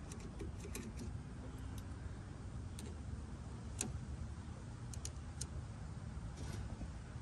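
Scattered small sharp clicks and taps of wire leads and connectors being handled, the loudest about four seconds in, with a brief rustle near the end, over a low steady background rumble.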